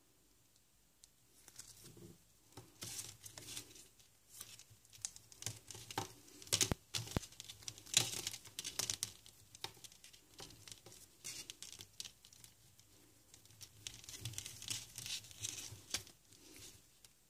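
Thin plastic packaging and earphone cable being handled: irregular crinkling and rustling in short bursts, loudest about a third of the way through.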